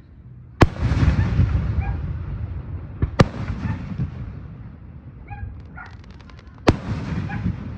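Aerial firework shells bursting: three loud bangs, about half a second in, about three seconds in and near the end, each followed by a long echo that fades away.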